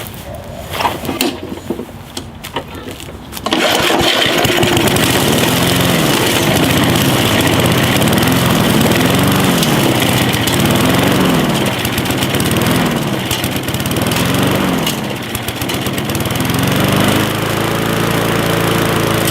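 Gas push mower's small engine catching about three and a half seconds in, then running with its speed surging up and falling back every couple of seconds as a hand over the carburetor intake chokes it, before settling into a steady, even run near the end. The surging is the engine drawing gas through carburetor orifices that the owner believes are oxidized by ethanol gas.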